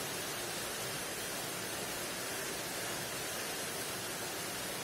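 A steady, even hiss of background noise with no distinct events in it.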